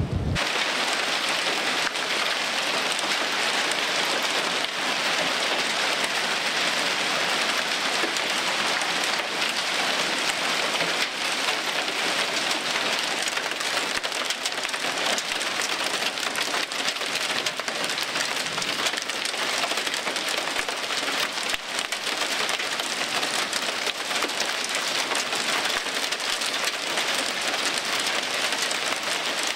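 Heavy rain mixed with hail pelting down, a dense steady patter of countless small impacts.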